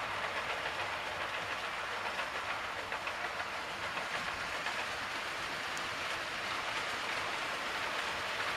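Model trains running on the layout's track: a steady rushing rattle of wheels over the rails with a motor whirr and a fast fine clicking.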